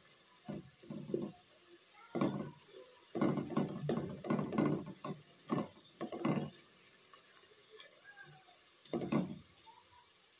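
Spatula stirring chopped onion with ginger-garlic paste in hot ghee in a pot: irregular scraping strokes, thickest a few seconds in, over a steady sizzle of frying.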